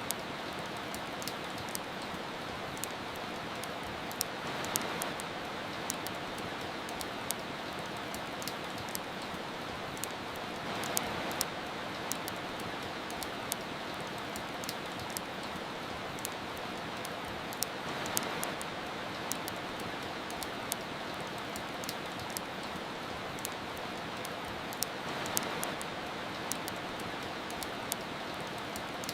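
Steady rain hiss with frequent small, sharp crackles from a wood fire. The hiss swells softly about every seven seconds.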